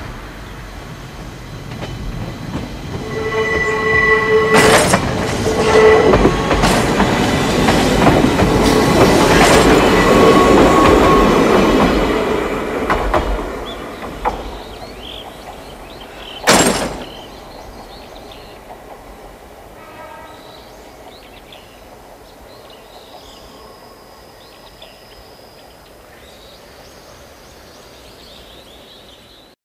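Former Keihan 3000 series electric train pulling away and passing close by: the running noise and wheels clicking over rail joints build to a peak, then fade as it moves off. A single sharp knock comes a few seconds after it has gone by.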